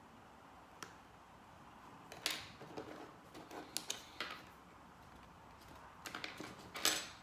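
Plastic pry tools clicking and scraping against the seam of an iPod Classic's case as it is pried open, with small knocks of plastic tools on a wooden table. The clicks come in irregular clusters, a few about two seconds in and the loudest ones near the end.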